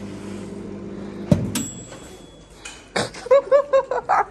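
Countertop microwave oven with a dial timer humming as it runs, then cutting off with a loud click about a second in, followed by a single bell ding as the timer ends. A knock follows, then a voice near the end.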